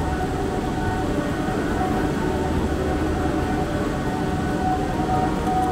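Steady mechanical rumble of a gondola ropeway station's machinery, the cable drive and sheaves running as the cabins move through the station.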